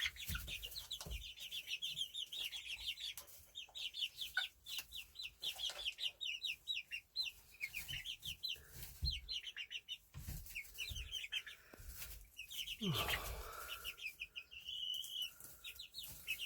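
Young chickens peeping in quick, high-pitched chirps while they feed, with scattered light taps. About thirteen seconds in, a lower call slides down in pitch.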